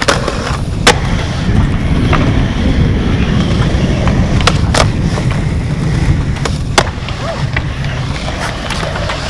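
Skateboard wheels rolling on concrete with a steady rumble, broken by sharp clacks of the board popping and landing: loud ones about a second in and near seven seconds, and a quick pair around four and a half seconds.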